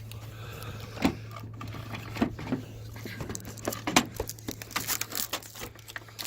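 Irregular hard plastic knocks, clicks and rustling as a headlight assembly is worked and pushed into its mounting. The sharpest knocks come about one second and four seconds in, and the clicks grow more frequent toward the end, over a steady low hum.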